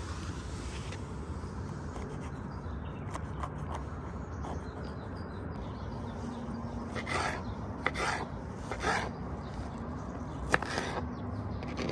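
Several short rasping scrapes during food preparation, clustered in the second half, over a steady low background rumble.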